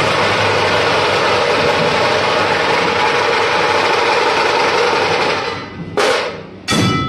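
Group of large Maharashtrian dhol drums beaten with wooden sticks in a fast, dense, loud rhythm. The playing thins out about five and a half seconds in and ends with two loud hits near the end.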